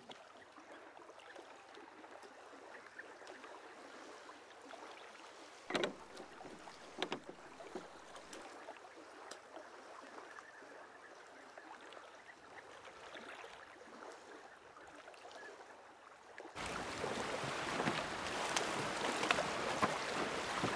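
Faint open-water ambience around a wooden rowboat, with two sharp knocks a little over a second apart. Near the end it cuts suddenly to a louder, steady rush of wind and lapping water at a reedy shore.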